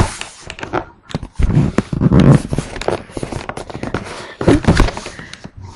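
Handling noise right at the webcam's microphone as it is carried and moved about: a rapid run of knocks and clicks with loud rubbing and rustling.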